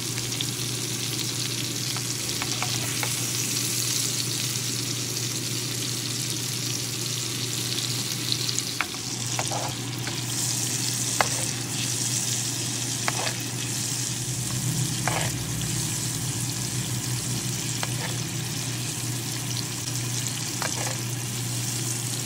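Two beef steaks sizzling steadily in hot fat in a metal frying pan while a spoon bastes them, the spoon clicking against the pan now and then.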